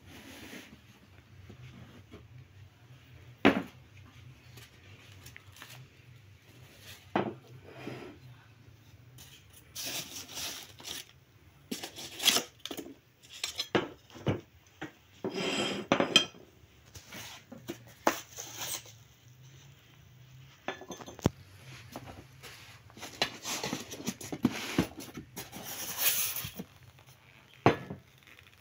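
China cups, saucers and teapot clinking and knocking as they are lifted out of a foam-lined box and set down on a table, with rustling of the packaging between the clinks. Several knocks are sharp and loud, one near the end.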